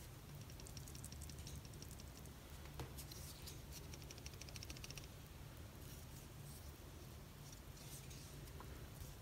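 Faint handling sounds of an old Spyderco folding knife: soft rubbing and small clicks as it is turned in the hands and its blade swung, with a quick run of fine ticks between about three and five seconds in.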